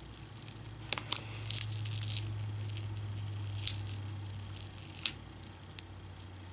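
Very tough adhesive tape being peeled slowly by fingertips off a laptop LCD panel's display-cable connector: scattered small crackles and ticks, most of them in the first few seconds. A steady low hum runs underneath.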